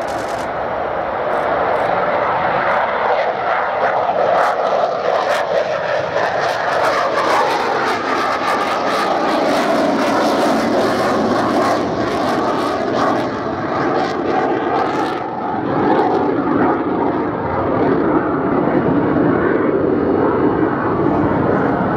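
Boeing C-17A Globemaster III's four Pratt & Whitney F117 turbofan engines running loud as the aircraft taxis close by. A steady jet noise with a whine that slides in pitch, growing louder in the first few seconds.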